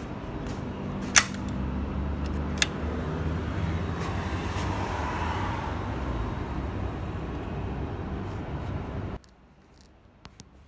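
Steady outdoor traffic rumble, with two sharp clicks of a metal security gate's latch in the first few seconds. The sound cuts off abruptly near the end.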